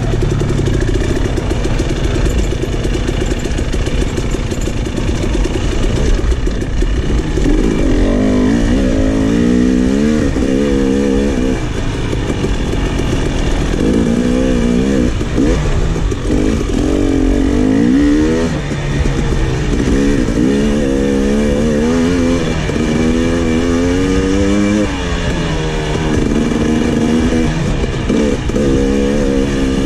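KTM 300 XC dirt bike's two-stroke single-cylinder engine under way, revving up and down over and over as the rider works the throttle through the trail.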